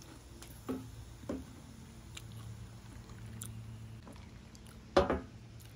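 Soft eating sounds, a few quiet crunches and clicks from someone eating a sandwich and chips, over a steady low hum. One short louder sound about five seconds in.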